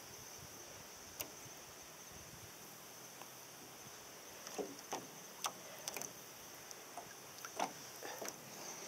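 Water lapping and sloshing against the hull of a small paddled boat, a few soft splashes mostly in the second half, over a faint steady high-pitched hum.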